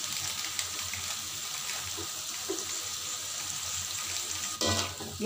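Carrots and green beans simmering in a little water and oil in an aluminium wok, a steady bubbling sizzle, with a brief louder noise near the end.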